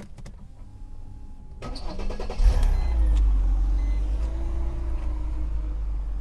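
Mercedes CLK 320 V6 cranked on the starter, catching about two and a half seconds in and settling into a steady idle. The engine starts now that the fuel pump has power again, its missing fuse replaced.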